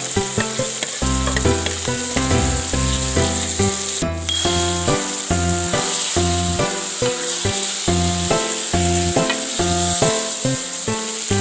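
Food sizzling as it fries in a pan: a steady hiss under background music with evenly stepped notes and a regular beat. Both drop out briefly about four seconds in.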